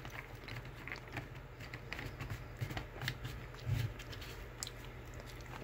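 Light, scattered clicks and rustles of a small cardboard candy box being handled and tipped in the hand.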